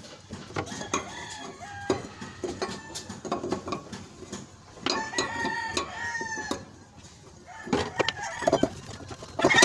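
A rooster crowing in long drawn-out calls, the longest about five seconds in, with chickens clucking around it. Occasional light metallic clicks and clinks.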